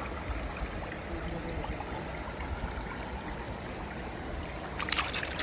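Mountain stream water rushing steadily over rocks, with a short louder burst of crackling noise near the end.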